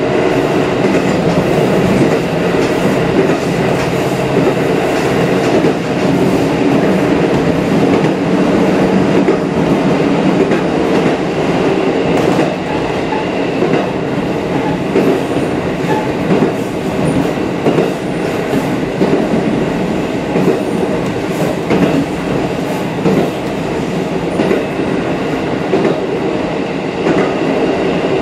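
KiHa 54 diesel railcar running along single track, heard from inside the rear cab: a steady diesel engine drone with scattered clicks of the wheels over rail joints.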